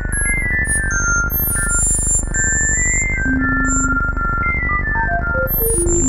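Microtonal electronic music in five-tone equal temperament: short pure sine-wave beeps hop among high pitches, some very high as in a hearing test, over a steady low backing. Near the end a run of sine tones steps down in pitch.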